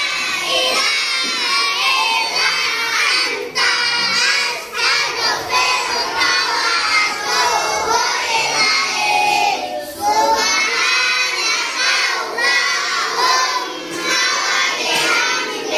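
A roomful of children's voices at once, loud and overlapping, shouting and chanting together.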